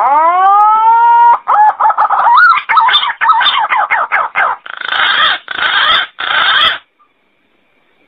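Green pigeon (punai) calling loudly: a long rising whistled note, then a run of quick warbling whistles, ending in three harsher notes.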